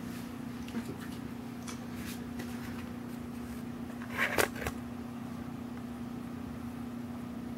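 Rustling and a few light knocks from a person moving about off-camera, the loudest pair about four seconds in, over a steady low hum.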